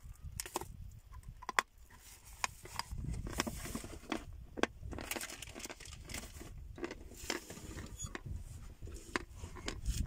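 A piece of edible chalk crunching as it is bitten and chewed, with paper wrapping rustling and scattered sharp clicks. A low wind rumble on the microphone runs underneath.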